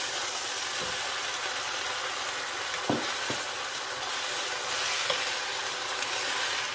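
Broccoli and carrots sizzling in a hot pan as cornstarch slurry is poured in and stirred with a wooden spoon. The spoon knocks against the pan twice about three seconds in.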